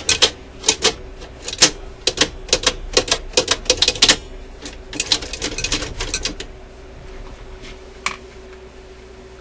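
Metal parts of an Admiral record player's changer mechanism clicking and snapping as a spring-loaded lever is worked back and forth by hand: a quick, irregular run of sharp clicks for about six seconds, then one more click near the end. The mechanism has just been flushed with alcohol and now moves freely, where dried-up lubricant had made it sticky.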